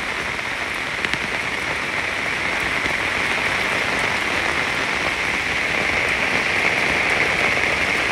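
Heavy rain falling: a steady, even hiss of rain pouring down.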